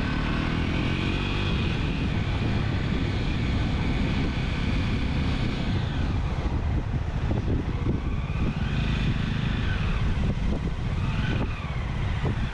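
Motorcycle engine running on the move, its pitch rising and falling a few times with the throttle, over a heavy low rumble of wind on the microphone.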